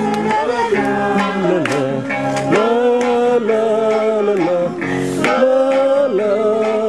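Singing of a Tagalog song with acoustic guitar accompaniment, the voice holding long, wavering notes that slide between pitches.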